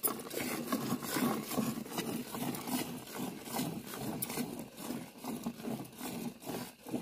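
Cow being milked by hand: streams of milk squirting into a pail in a steady rhythm of hissing swishes, about two to three a second.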